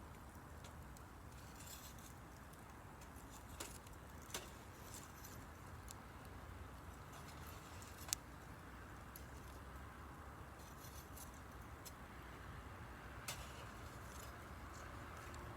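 Wood campfire crackling faintly: scattered sharp pops, the loudest about eight seconds in, over a low steady hiss.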